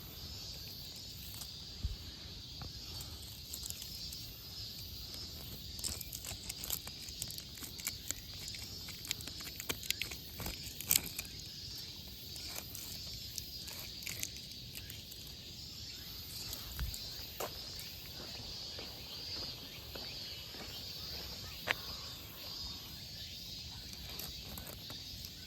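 A steady, shrill chorus of insects, with irregular footstep scuffs and taps on a walking path. The sharpest tap comes about eleven seconds in.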